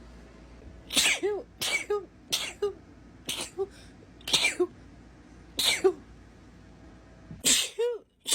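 A woman sneezing over and over in a fit, about seven sneezes in quick succession, each a sharp burst with a short falling "choo" at its end.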